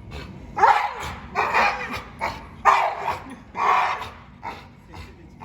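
An American bully barking agitatedly at a toy dog: a run of barks, the four loudest about a second apart, with smaller yips between.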